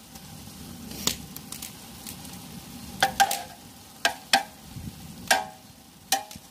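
Perforated steel ladle spreading and levelling rice in a large aluminium pot, with soft scraping and about half a dozen sharp metal clinks against the pot, over a steady low hiss from the simmering pot.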